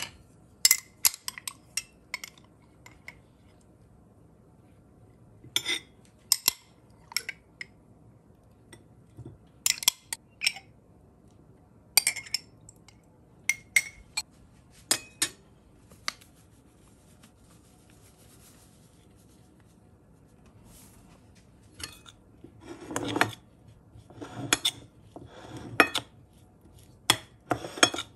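Kitchen utensils and dishes being handled: scattered sharp clinks and knocks, then a quicker run of heavier knocks near the end.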